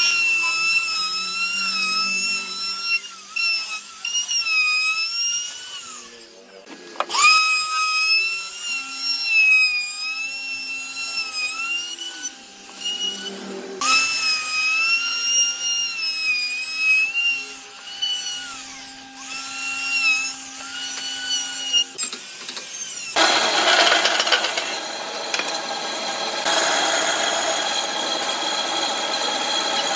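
Small electric power tool, such as a drill, running in three spells with a high whine whose pitch sags under load and recovers. For the last quarter a harsher, noisier tool runs steadily.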